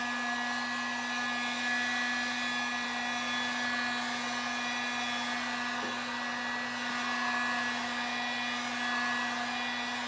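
Electric heat gun running steadily: a steady motor hum under the hiss of blowing air, warming a car taillight lens before tint film is applied.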